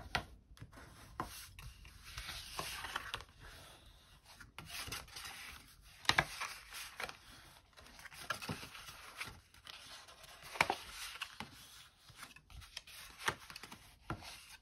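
Bone folder rubbing along the score lines of stiff cardstock to crease them, with the card rustling and scraping as the flaps are folded. A run of short, faint strokes.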